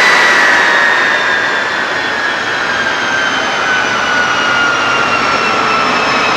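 Orenda Type 14 axial-flow turbojet running on a test stand: a loud roar with a high compressor whine that slides steadily lower in pitch as the engine slows. The level eases a little in the first two seconds, then holds.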